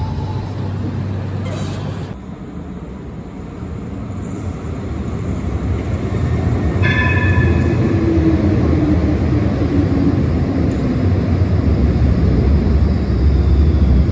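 Tram running through an underground premetro station: a low rumble of wheels on rail that dips suddenly about two seconds in, then swells and stays loud as a tram passes close. A brief high tone sounds about seven seconds in.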